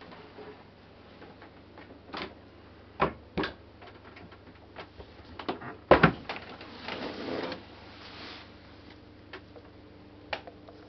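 A scattered series of sharp clicks and knocks over a faint steady hum, the loudest knock about six seconds in, followed by a brief rustle.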